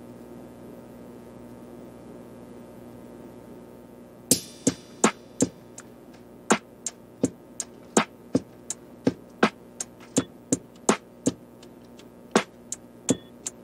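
Background music: a low steady drone, then sharp plucked notes in a steady beat come in about four seconds in.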